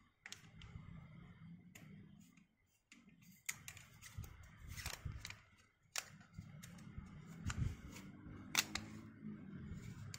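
Handling noise from a Nikkor-Q Auto 135mm f/2.8 manual-focus lens being turned in the hands: irregular sharp clicks and low rubbing of the metal barrel and rings as they are moved.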